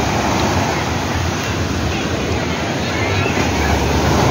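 Ocean surf breaking close by and washing up the sand: a steady rushing and fizzing of waves and foam.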